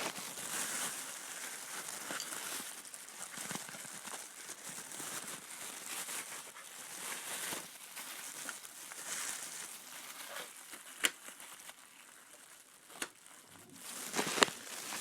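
Rustling and crinkling handling noise as a small case of tiny drill bits is worked out of storage, with a few sharp clicks near the end.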